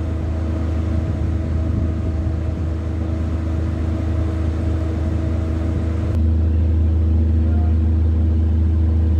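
Steady low mechanical drone of a noisy multi-storey car park, a constant hum with a few held tones above it. About six seconds in it shifts abruptly to a heavier, duller drone.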